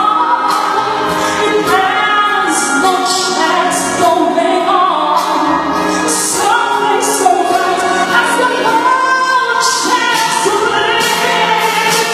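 A song: a singing voice holding and gliding between notes over a backing track, with regular cymbal-like strokes.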